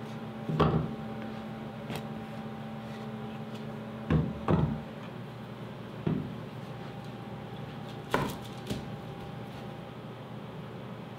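Pieces of cut plywood being picked up and set down on a CNC router table: a handful of hollow wooden knocks and clatters, loudest about half a second in and about four seconds in, over a steady faint hum.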